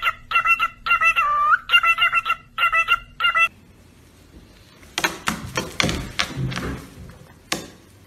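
A cockatiel gives a run of short, repeated whistled chirps in quick groups, one longer note bending in pitch. After a pause, two white-bellied caiques wrestle and scuffle on a tabletop, a rough scratchy rustle of wings and claws with many sharp clicks.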